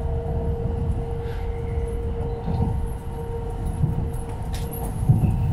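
Cabin noise of a 700 series Shinkansen at speed: a steady low rumble of wheels on rail, with a constant hum over it.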